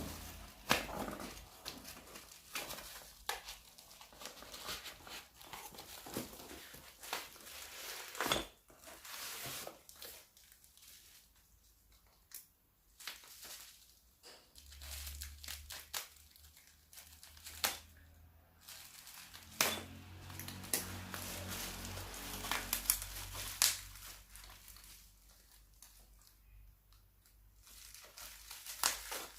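Plastic packaging crinkling and tearing as a package is unwrapped by hand, with irregular rustles and scattered sharp clicks.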